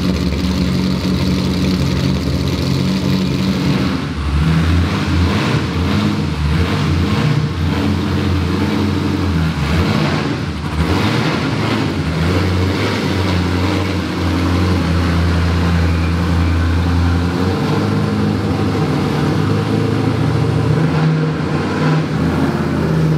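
Corvette drift car's engine running, steady throughout.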